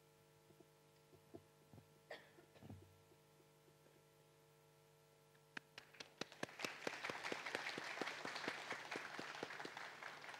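Audience applause: scattered claps start about five and a half seconds in, swell into steady clapping from many hands, and begin to thin out near the end. Before it, only a few faint knocks.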